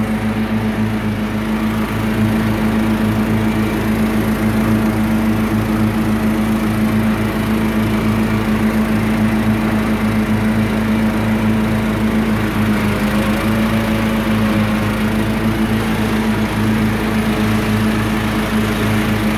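Troy-Bilt riding lawn mower engine running steadily at working speed as the mower drives across the lawn, with a slight shift in engine pitch about two-thirds of the way through.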